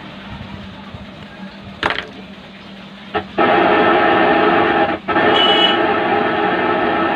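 Clicks, then a 65-watt universal amplifier's FM radio coming on loud through its speaker about three and a half seconds in, playing steadily with a brief dropout about five seconds in.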